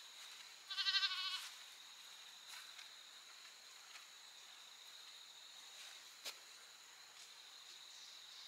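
One short, quavering bleat from an animal about a second in, over a steady high-pitched hum, with a single sharp click later.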